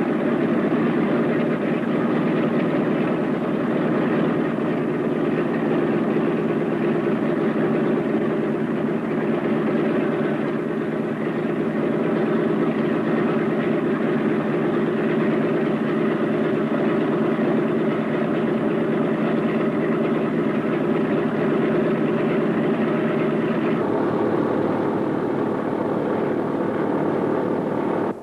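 Boeing B-17's four Wright R-1820 Cyclone radial engines idling steadily with the throttles pulled back. The sound turns duller about four seconds before the end.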